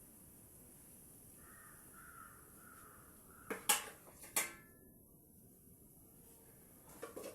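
A crow cawing faintly in the background, then two sharp clinks of a kitchen utensil against cookware about halfway through.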